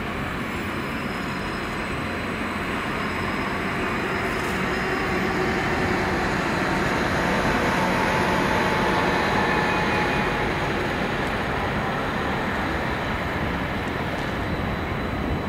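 Transport for Wales passenger multiple unit passing along the platform line: a steady rumble of wheels and running gear that grows to its loudest about halfway through, with a faint whine around then, and eases off.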